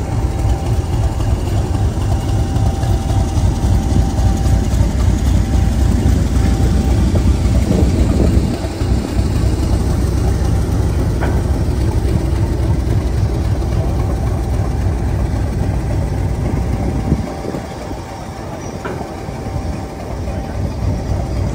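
Class 50 diesel locomotive 50026's English Electric 16CSVT V16 diesel engine idling: a steady heavy low rumble with a faint whine above it, easing a little about three-quarters of the way through.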